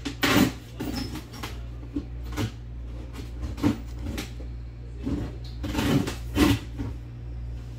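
Irregular sharp clicks and knocks, roughly one a second, the loudest near the start and about six seconds in, over a steady low hum.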